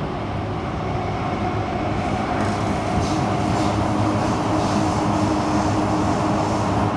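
Kawasaki-CRRC Sifang CT251 metro train running, heard from inside the car: a steady motor hum over wheel and track rumble that grows slowly louder. From about two seconds in there is a regular knocking from the wheels, the pounding of flat wheels.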